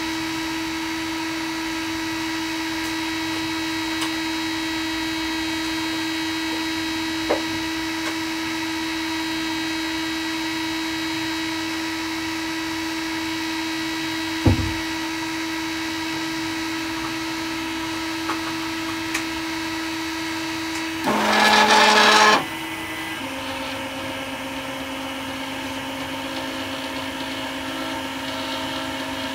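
3D printer running, its stepper motors and cooling fans giving a steady hum with a high whine, with a few faint clicks and one low thump near the middle. About three quarters of the way in comes a loud burst about a second and a half long as the print head and bed move quickly to a new position, after which the hum settles at a lower pitch.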